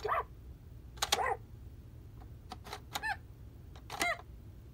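Fisher-Price Baby Smartronic animal quartet toy piano, its plastic animal figures pressed down one after another: a sharp plastic click with each press, most followed by a short electronic chirp from the toy's speaker, several times about a second apart.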